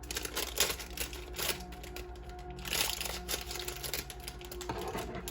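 Plastic blind-box bag being handled and torn open, a run of quick crinkling and rustling, with soft background music underneath.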